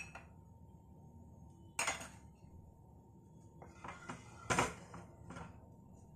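A few short knocks and scrapes of a wooden spatula against a nonstick frying pan as oil is spread in it, the loudest about four and a half seconds in.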